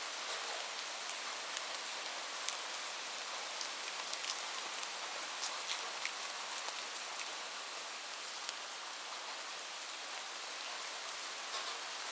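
Steady rain falling on a roof: an even hiss with many sharp individual drop ticks scattered through it.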